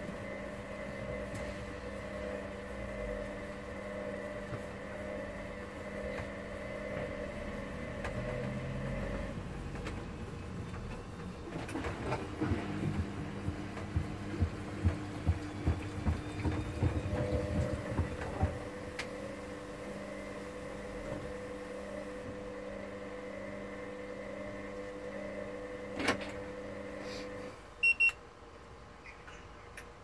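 Hoover Dynamic Next front-loading washing machine's wash cycle: the drum motor hums steadily as it turns the wet laundry, pauses, then runs again, with clothes and water sloshing and knocking in the drum in between. The motor stops near the end, and two short high beeps follow.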